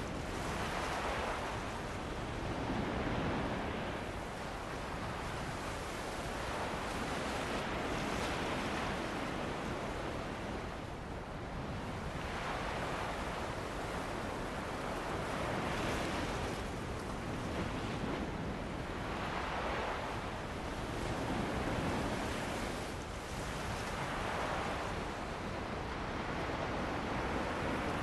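Ocean waves breaking and washing on a beach, surging every few seconds, with wind blowing.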